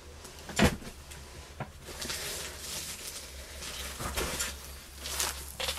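Handling and rummaging sounds: a knock about half a second in, a small click, then uneven rustling with another knock, as items are reached for and picked up.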